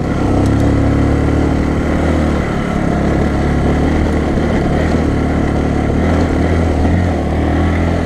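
Bajaj Boxer BM 150's single-cylinder four-stroke engine running steadily under load as the motorcycle climbs a rocky dirt track.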